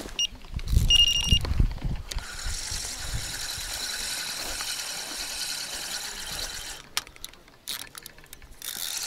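Carp rod bite alarm beeping briefly twice, then the reel's free-spool ratchet clicking fast and steady for about four seconds as a fish takes line: a run on the pop-up rig. The ratcheting stops with a click and starts again near the end.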